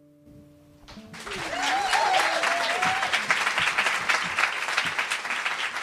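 A song's last held notes die away, and about a second in a live audience starts applauding, with one voice giving a long wavering cheer over the clapping.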